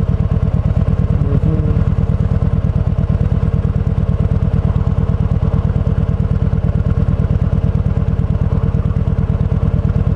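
Kawasaki Vulcan 1700 Voyager's V-twin engine running steadily, an even, unbroken rumble with no revving.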